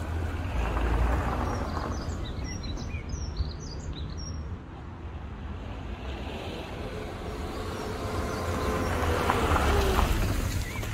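Rover 25 GSi hatchback driving off across gravel and then coming back, its engine growing louder and dropping in pitch as it passes close by near the end. Small birds chirp briefly in the middle.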